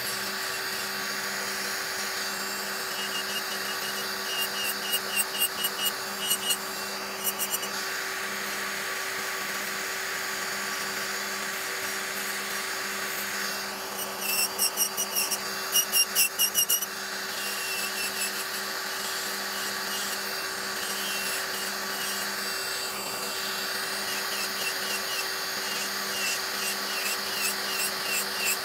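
Electric nail drill filing old gel off fingernails for a fill-in, its bit grinding in spells of short back-and-forth strokes, about three a second, over a steady hum that runs throughout.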